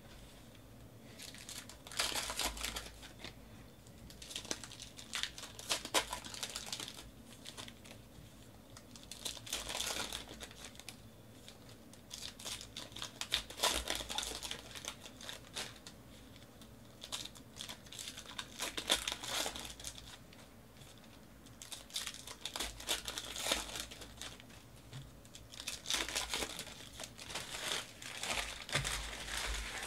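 Wrappers of 2018 Panini Classics football card packs being torn open and crinkled by hand, in repeated bursts every few seconds, with the cards inside handled between them.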